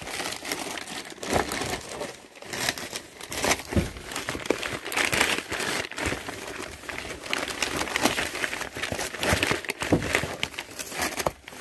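Crumpled packing paper rustling and crinkling in a cardboard box as hands rummage through it, in irregular bursts.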